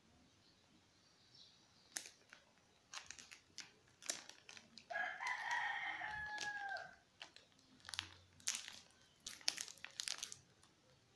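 Shih tzu crunching crackers in sharp, irregular crunches. About five seconds in, a rooster crows once in the background, a single call of about two seconds that drops in pitch at the end.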